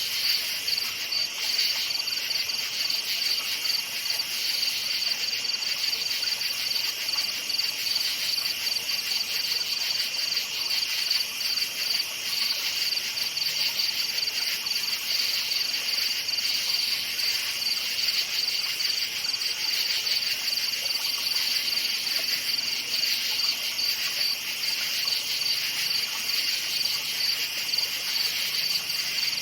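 Crickets chirping steadily in a dense chorus, a continuous high trill with fast pulsing.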